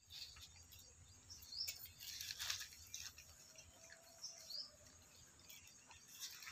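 German Shepherd chewing and biting a sugarcane stalk, faint scattered crunches, loudest about two and a half seconds in. Small birds chirp a few times.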